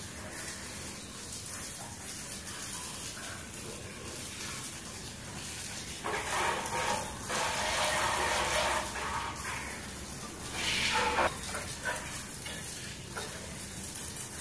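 Water jet from a hand-held plastic hose spray gun hissing and splattering onto a motorcycle. It grows louder from about six seconds in, and again briefly near eleven seconds, as the stream strikes the bike directly.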